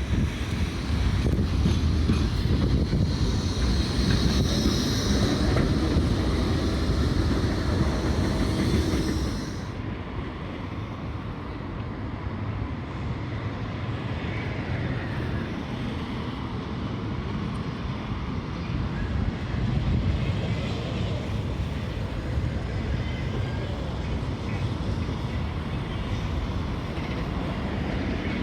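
A Blackpool tram running along the track with a loud, steady rumble. About nine and a half seconds in, the sound changes suddenly to a quieter, duller steady noise with wind on the microphone.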